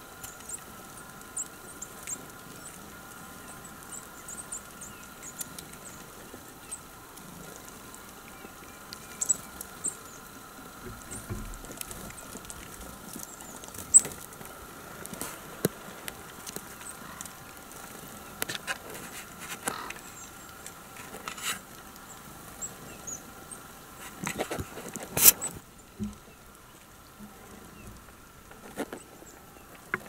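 Tits pecking and tapping at a hanging fat-and-seed cake close to the microphone: irregular sharp clicks and taps, two of them much louder, with short high call notes scattered throughout.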